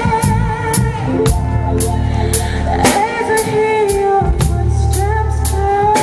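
A male vocalist singing with vibrato over a backing track of drums and bass. The drum hits come about twice a second.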